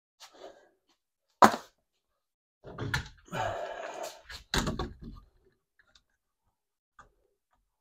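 A pneumatic nail gun fires one sharp shot into the wooden layout framing about a second and a half in. It is followed by a few seconds of clattering and scraping of wood being handled, with a couple more sharp knocks.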